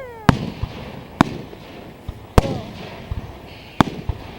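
Aerial fireworks shells bursting: four loud, sharp bangs at uneven intervals of about a second, with a fainter pop after the first.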